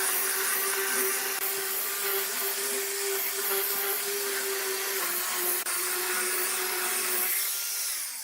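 Electric power tool motor running steadily with a loud, even hum and hiss while working wood; the sound thins out about seven seconds in and stops at the end.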